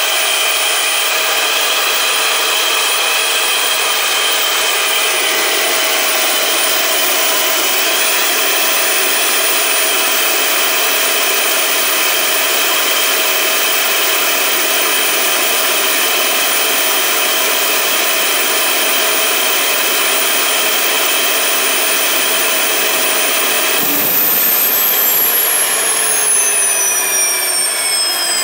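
1962 AiResearch GTP 70-19 gas turbine running at speed: a loud, steady jet rush with a high whine. About 24 seconds in there is a click, and the whine starts falling in pitch as the turbine slows.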